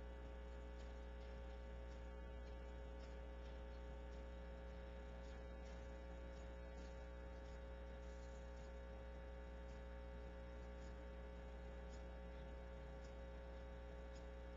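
Faint, steady electrical mains hum with a constant higher tone above it, unchanging throughout.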